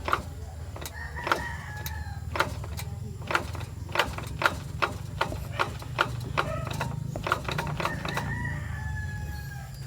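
Ford EcoSport running in third gear, with a steady low engine and road drone and repeated sharp clunks from the car, roughly two a second and unevenly spaced. The clunking is the fault the owner is recording.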